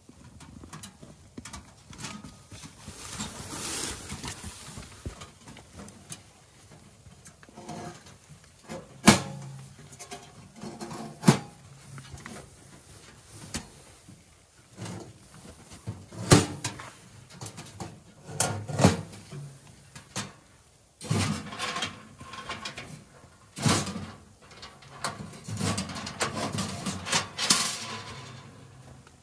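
Camp gear being handled during setup: a series of sharp knocks and clatters, spaced irregularly a second or more apart, with softer rustling between them.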